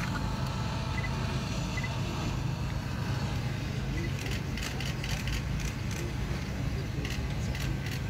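Outdoor crowd murmur over a steady low rumble, with a run of sharp clicks in the second half.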